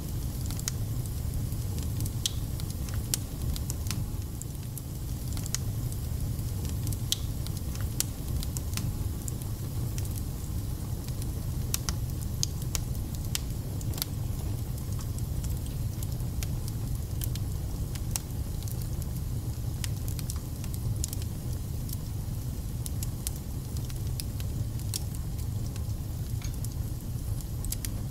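Wood fire burning in a fireplace: a steady low rumble with frequent sharp crackles and pops.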